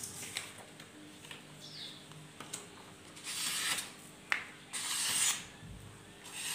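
A steel golok blade being wiped: three rubbing strokes, the first two about half a second to a second long, with a sharp tick between them.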